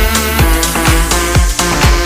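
Electronic dance music with a steady kick drum, a little over two beats a second, under sustained synthesizer chords.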